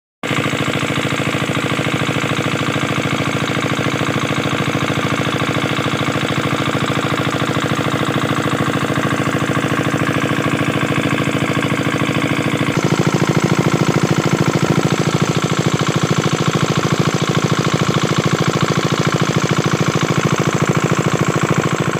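Single-cylinder 5 hp Kirloskar diesel engine running steadily while driving a centrifugal irrigation water pump, with an even, rapid knock of its firing strokes. Partway through it becomes a little louder and fuller.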